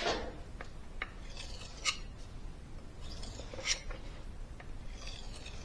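Carbon-steel knife blade being drawn by hand across a wet 4000-grit waterstone: three hissing strokes about two seconds apart, each ending in a short, sharper scrape.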